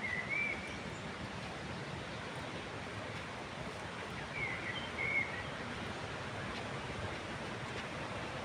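Steady rushing of a waterfall. A bird chirps briefly near the start and twice more about halfway through.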